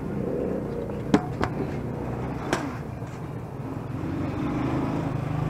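Metal ladle knocking against the vendor's aluminium pots three times, sharp ringing taps about a second in, again just after, and once more about a second later, while silken tofu and syrup are scooped into a cup. Under it a steady low rumble of street traffic.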